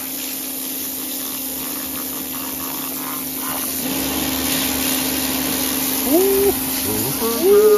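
Kärcher K2 electric pressure washer running, its pump motor humming steadily under the hiss of the water jet blasting moss and grime off a concrete block wall. Near the end a man's voice gives two short rising calls over it.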